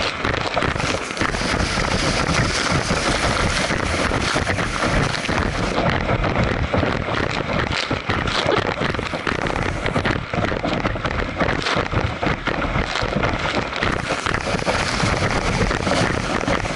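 Wind buffeting the microphone of a camera at the stern of a speeding motorboat, mixed with the churning wake and spray spattering onto it. Steady and loud, with constant crackling from the water droplets.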